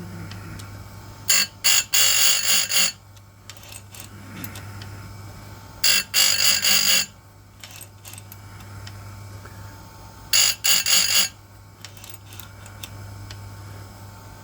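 Electric chainsaw-chain grinder with a pink grinding wheel, its motor running with a steady hum, and three bursts of high-pitched grinding about four seconds apart as the wheel lightly touches one RS chain tooth after another on a slow second, finishing pass.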